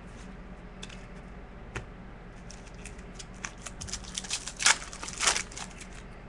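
Trading card packs and wrappers being handled, crinkling and rustling. A few light clicks come first, then a run of sharp crackles from about three and a half to five and a half seconds in.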